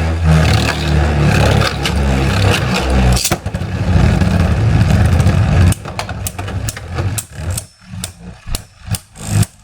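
Two spinning Beyblade tops, a 3D-printed Mystic Ultraus and Naked Diabolos, whirring and grinding against each other and the plastic stadium. About six seconds in the steady whir gives way to scattered sharp clacks and rattles as the spin runs down.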